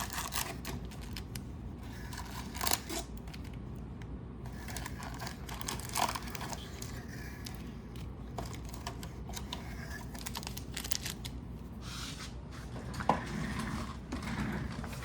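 Plastic and foil packaging of a hockey card hobby box crinkling and tearing as it is handled, with several sharp clicks and knocks in between.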